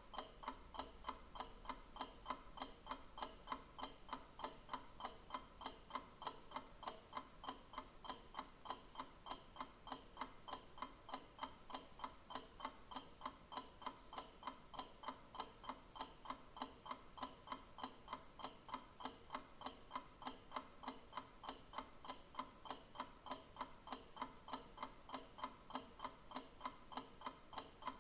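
Clock ticking steadily, a few even ticks a second.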